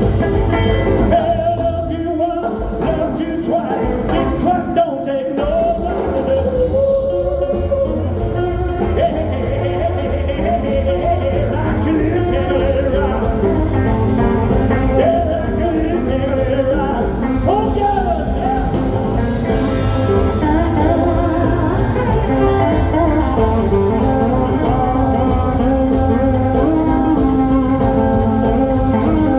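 Live rock and roll band playing with a steady beat, with singing over guitar and drums; the band stops briefly twice, about two seconds in and again about five seconds in.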